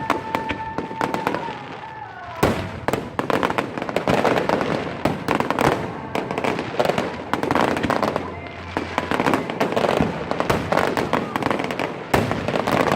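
Fireworks display: a continuous stream of crackling and popping shells, with a sharp loud bang about two and a half seconds in after which the crackling grows denser.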